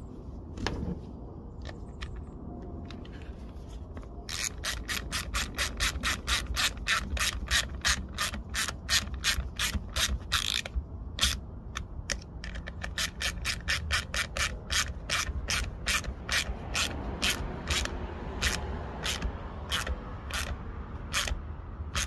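Hand ratchet clicking in steady strokes, driving a self-tapping bolt into the replacement blower motor's mounting flange. The clicking starts about four seconds in at about five clicks a second, stops briefly near the middle, then goes on more slowly at about three clicks a second.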